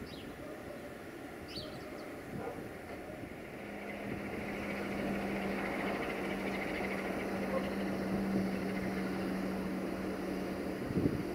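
Electroputere 060-DA (ST43) diesel-electric locomotive's Sulzer diesel engine running as it approaches hauling a freight train, a steady low drone and rumble that sets in a few seconds in and grows louder. A few short bird chirps come before it.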